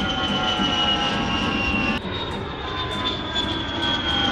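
Private jet sound effect: a steady rush of jet engine noise with a high turbine whine that slowly falls in pitch. About two seconds in it cuts back and starts over.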